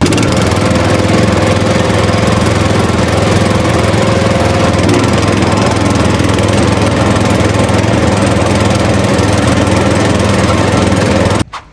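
A small engine-like motor running steadily, starting abruptly and cutting off abruptly near the end.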